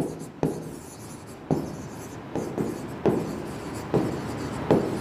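A stylus writing on an interactive whiteboard screen: a run of sharp taps, one or two a second, each followed by a short scrape as a letter stroke is drawn.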